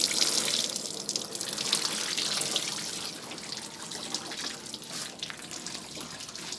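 Excess water glass (sodium silicate solution) running and dripping off a soaked batik cloth into a plastic tub, the color-fixing bath draining away. The trickle eases gradually into scattered drips.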